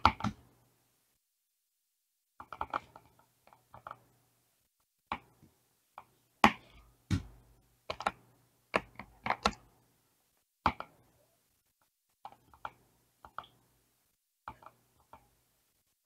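Irregular sharp clicks and knocks, some single and some in quick clusters, with short silences between; the loudest come about six and a half and seven seconds in.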